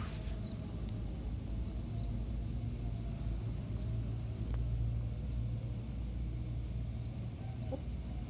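Outdoor background noise: a steady low rumble, with a few faint, short high chirps now and then.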